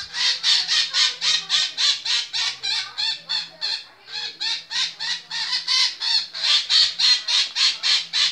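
Maritacas (Brazilian parakeets) calling from the tree canopy in a rapid, unbroken run of short calls, about four a second, with a brief lull about four seconds in.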